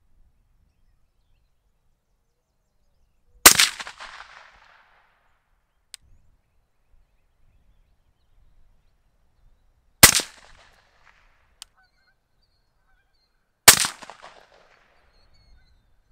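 Three shots from a suppressed 6.5 Grendel rifle, spaced several seconds apart, each a sharp crack that rings out and fades over about a second. Two faint clicks fall between the shots.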